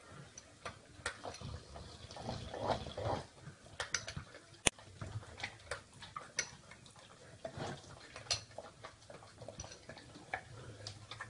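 Rottweiler licking and smacking food off a spoon, irregular wet tongue clicks, with a spoon tapping against the bowl. One sharp clink about four and a half seconds in is the loudest sound.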